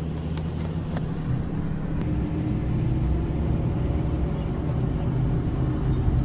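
Boat motor running steadily, a low rumble.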